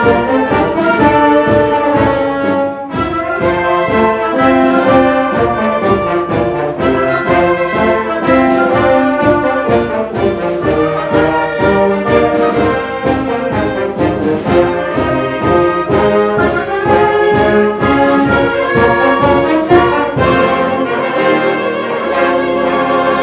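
Concert band (wind band) playing, brass prominent over woodwinds, with a steady beat marked by percussion; the lowest bass drops out near the end.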